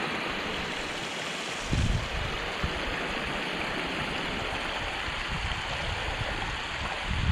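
Moorland stream water rushing steadily, with brief gusts of wind rumbling on the microphone about two seconds in and again near the end.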